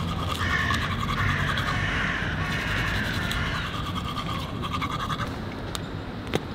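Manual toothbrush scrubbing teeth, a rapid scratchy brushing that stops about five seconds in.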